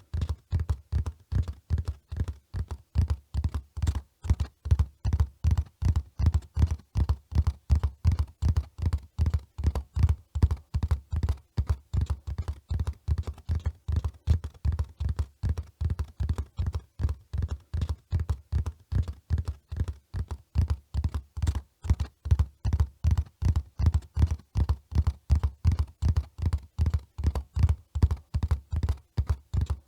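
Hoofbeats of a running horse: a steady run of dull, low thuds, about three to four a second.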